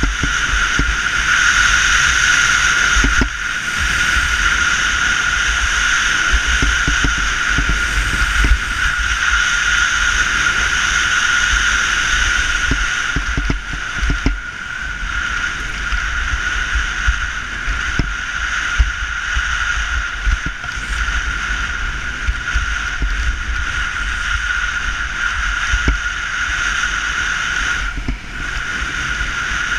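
Snowboard sliding and scraping over packed snow in a continuous loud rush, with an uneven low rumble underneath, heard through a board-mounted or body-worn action camera.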